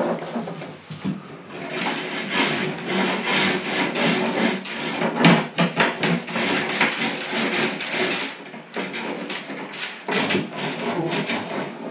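Cable rods being pushed and jiggled through a plasterboard ceiling void, scraping and rubbing inside it with a fast, irregular rasping, as two rods are worked toward each other to meet.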